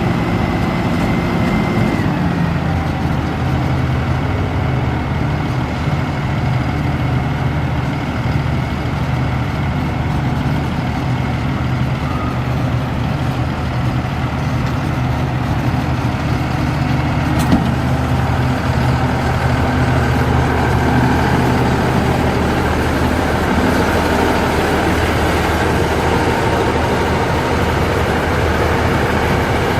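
2014 Kenworth T270's Paccar PX7 inline-six diesel engine running steadily, its note dropping about two seconds in and shifting again later, with a short click near the middle.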